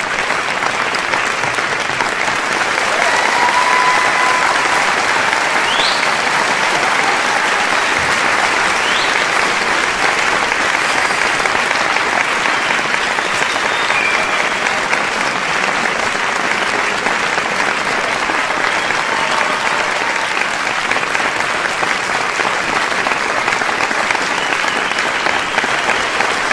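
Audience applauding, swelling over the first few seconds and then holding steady, with a few faint whistles.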